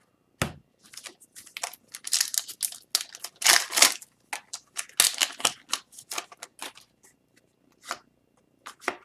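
Hockey trading cards being handled and flipped through by hand: a quick run of short crisp rustles and flicks that thins to a few scattered clicks after about seven seconds.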